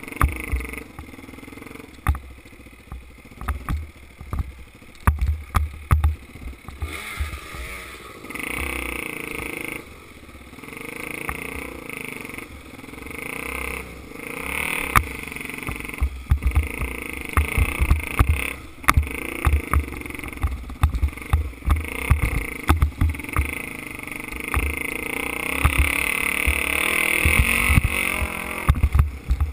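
Dirt bike engine running along a trail, its pitch rising and falling with the throttle and loudest near the end. Frequent sharp knocks and rattles come through as the bike jolts over the rough ground.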